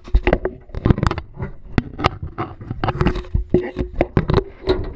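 Irregular knocks and clatter, several a second, of footsteps and zipline harness gear on an aluminium launch ramp, with the body-worn camera rubbing and bumping.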